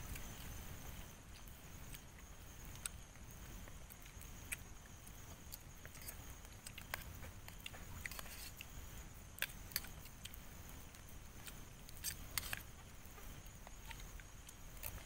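Spoons clicking and scraping against metal and plastic bowls as people eat, a few sharp clinks several seconds apart, some in quick pairs, over a low steady rumble.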